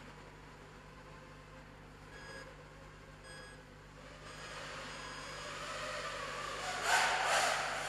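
Motors and propellers of a QAV210 FPV racing quadcopter with 2300kv motors and 5-inch props, a whine that grows louder and peaks sharply near the end as the quad flies close. Two short electronic beeps sound about two and three seconds in.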